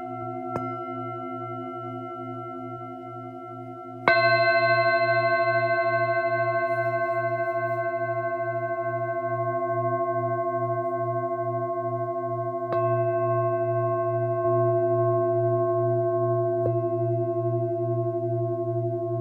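Tibetan singing bowls struck four times, the loudest about four seconds in, each strike setting off a long ring of several overtones with a slow pulsing beat that carries on between strikes.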